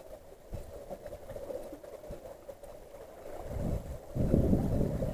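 Wind buffeting the microphone, a low rumble that swells into louder gusts in the last second and a half, over a faint steady hum.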